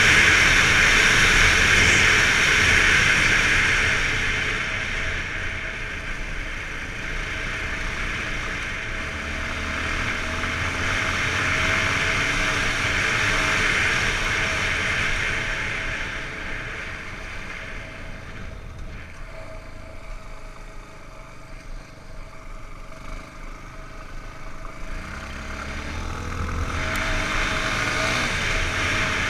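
Yamaha XTZ 250 Lander's single-cylinder four-stroke engine under way off-road, under heavy wind rush on the camera's microphone. The engine revs rise and fall several times, and it all gets quieter for a stretch past the middle before building up again near the end.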